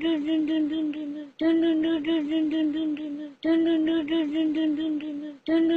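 A short sung or hummed phrase on one slightly wavering note, repeated as a loop. The same two-second phrase plays about three times, each starting sharply and fading out.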